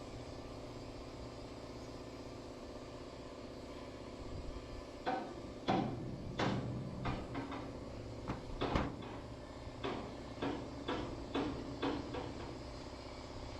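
A run of irregular knocks and clacks, roughly two a second, starting about five seconds in, over a steady low hum.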